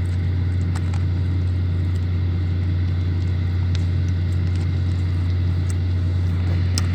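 Steady low machinery hum that does not change, with a few faint clicks of utensils on dishes.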